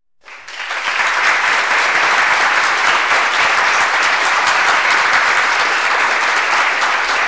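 Crowd applause: many hands clapping together, swelling up within the first second and then holding steady.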